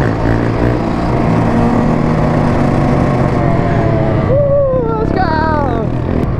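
Dirt bike and sport quad engines running close by, with an engine revving up and down over the last few seconds.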